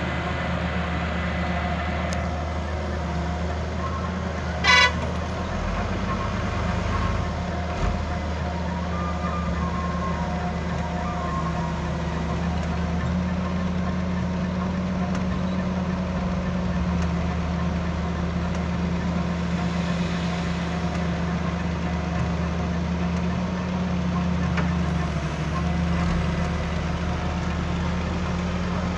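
Heavy diesel engines of an excavator and a mud-stuck dump truck running with a steady low drone. One short, loud horn toot sounds about five seconds in.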